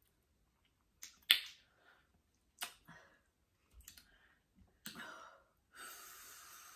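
Mouth clicks and lip smacks from eating spicy noodles, the sharpest about a second in, followed near the end by a hissing breath lasting about a second, of the kind drawn against the burn of very spicy food.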